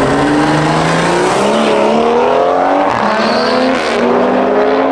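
Drag-racing cars, one a blue BMW sedan, launching and accelerating hard down the strip. The engine note climbs through the gears and drops at upshifts about three and four seconds in.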